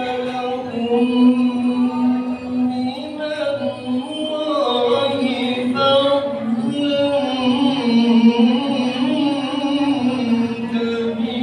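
A man's solo vocal chant sung into a microphone: long held notes that slide and waver in an ornamented melody.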